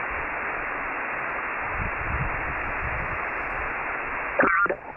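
Icom IC-9700 receiving single-sideband on the 70 cm band: a steady hiss of receiver noise, cut off above the narrow SSB filter's passband, heard while no station is transmitting. A voice comes through over the radio near the end.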